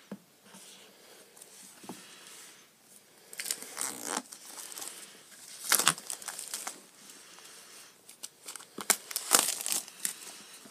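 Plastic wrapping being torn and crumpled off a cardboard iPhone 5 box, in irregular crackling bursts, loudest about six seconds in and again around nine seconds in.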